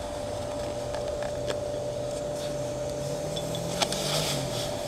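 LPG dispenser running while it fills a gas bottle: a steady whine, with a low hum that rises a little in the second half and a single sharp click near the end.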